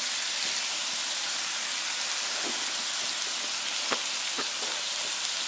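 Slices of Korean hanwoo beef and king oyster mushrooms sizzling steadily on a hot griddle, with a few faint clicks about halfway through.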